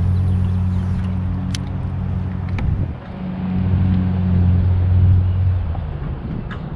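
A motor's low, steady hum that fades briefly about three seconds in and then returns.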